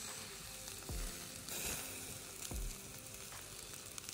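Chops, steak and boerewors sizzling on a round braai grid over wood coals, with a steady fine hiss and a few soft low thumps about a second and again two and a half seconds in.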